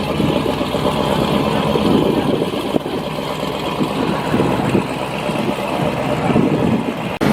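A car engine running steadily at a fairly even level, with voices in the background.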